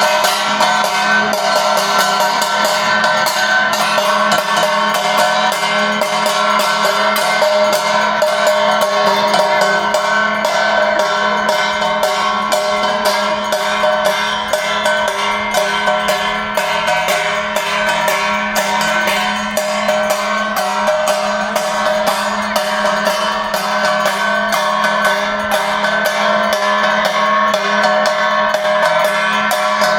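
Devotional arati music: a fast, steady run of percussion strikes over sustained held tones.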